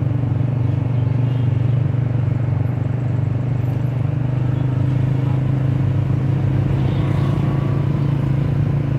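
Motor vehicle engine running with a steady low drone as it moves slowly along a street, with a haze of street noise behind it.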